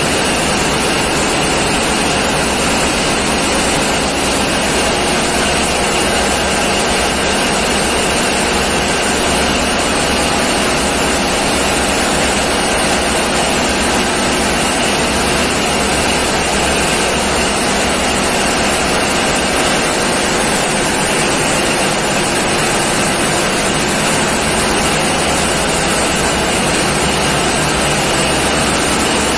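Loud, steady din of a tugboat engine room's running diesel machinery, holding one level without change.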